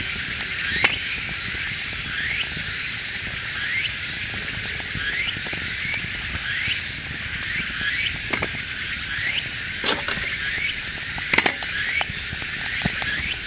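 Cicadas singing in a steady high chorus, with a short rising chirp that repeats a little more than once a second. A few sharp snaps from the kindling fire in a small wood-gas stove stand out, the loudest about a second in and a cluster near the end.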